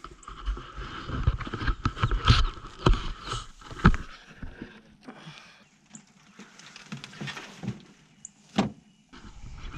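Rabbit cage being dragged across grass: scraping and rattling with several sharp knocks in the first few seconds, then quieter, and one more knock near the end.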